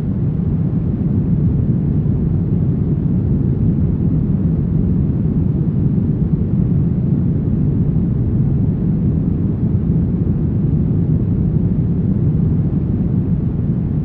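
Brown noise: a steady, deep rushing hiss, strongest in the low range and fading toward the highs, with no change.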